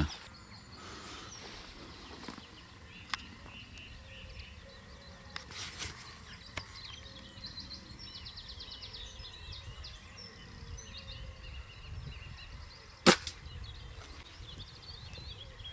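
A spring-powered air rifle fires a single sharp shot about thirteen seconds in. Birds chirp faintly throughout.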